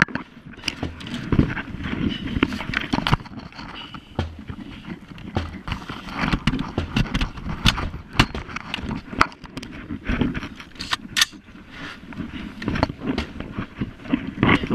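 Rustling and irregular knocks of a body-worn camera rubbing and bumping against clothing and gear.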